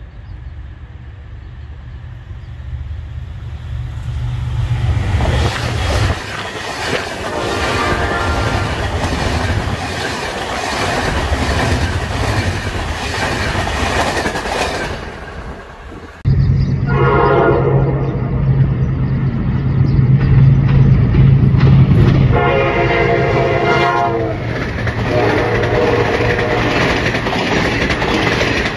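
Passenger trains passing at speed, the first led by a General Electric diesel locomotive: a low engine rumble builds, then the train sounds its horn as it goes by and the wheels clatter over the rail joints. Partway through there is an abrupt change to another train rolling past with the horn blown several more times.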